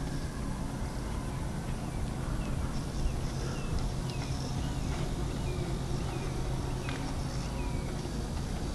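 Outdoor ambience: a steady low rumble, with a bird giving a run of short falling chirps a few seconds in.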